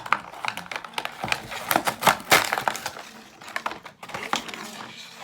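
Beyblade toy packaging being torn open by hand: irregular crinkling, crackling and tearing of the package, densest and loudest about two seconds in.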